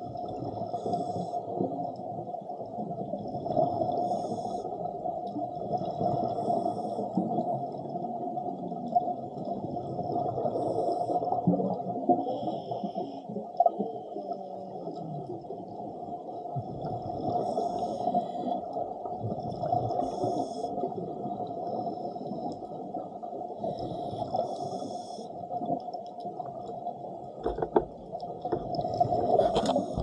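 Underwater ambience picked up by a submerged camera: a steady muffled rumble, with short hissing gurgles of scuba divers' exhaled regulator bubbles every two to three seconds.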